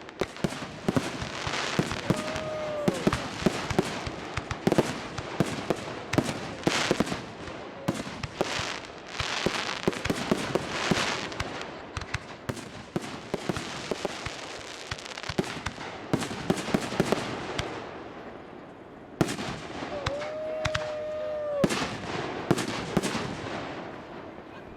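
Fireworks display: a dense barrage of rapid bangs and crackling, easing briefly about three-quarters through before picking up again.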